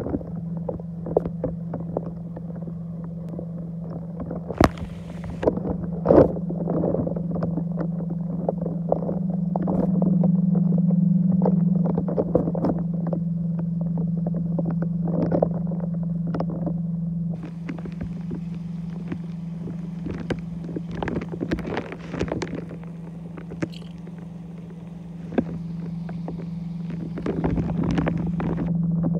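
Steady low hum of a Bestway sand filter pump running, heard under water in the pool, with scattered clicks and crackles of water moving over the microphone.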